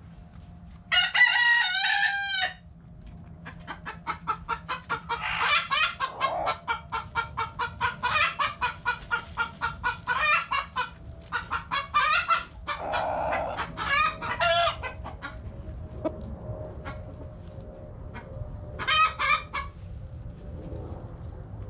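Chickens calling: a rooster crows once, briefly, about a second in. Then a long run of quick clucks follows, broken every few seconds by louder drawn-out calls, in the way a cackling hen sounds. One more short call comes near the end.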